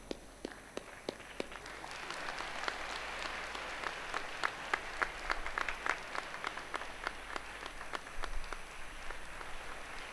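Audience applauding: many hands clapping in a steady patter that builds over the first couple of seconds and thins out near the end.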